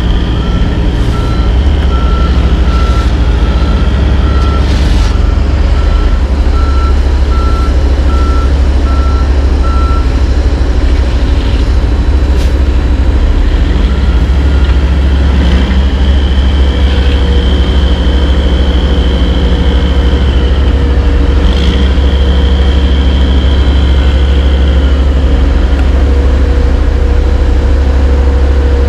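Heavy diesel dump truck backing up to an asphalt paver, its reversing alarm beeping at an even pace for the first ten seconds or so over the steady running of the diesel engines. From a little past halfway a steady whine joins the engine noise while the dump box tips up to unload asphalt into the paver.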